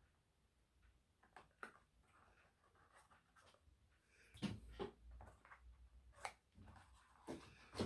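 Near silence, then from about four seconds in, faint rustles and soft taps of card and paper being handled.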